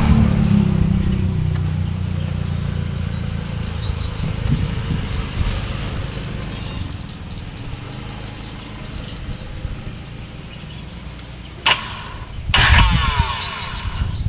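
Volvo six-cylinder diesel engine running after being started with only two working glow plugs, loud at first and easing down to a quieter, steady run. Near the end comes a sharp click, then a short loud rushing burst.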